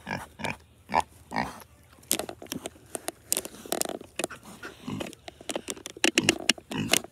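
Pigs grunting while they eat grass, with many short sharp clicks of chewing and smacking between the grunts.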